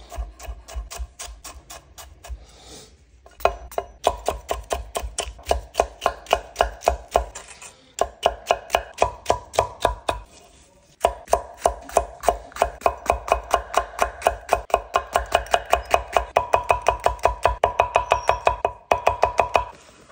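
Chef's knife slicing bell peppers into strips on a wooden cutting board: fast, even chops at about five a second, each with a short ringing knock, broken by brief pauses.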